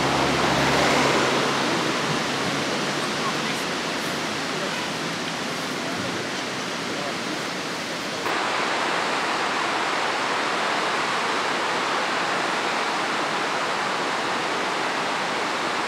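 Mountain river rushing over rocks in white-water rapids: a steady hiss of running water that steps up abruptly in level about eight seconds in.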